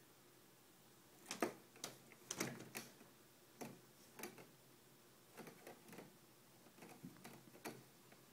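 A kitten's claws catching and scraping on window-screen mesh as she climbs it: an irregular scatter of sharp clicks and scratches, starting about a second in, some in quick runs.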